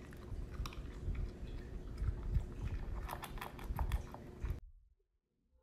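A Pembroke Welsh corgi chewing, with irregular clicks and crunches; it cuts off suddenly near the end.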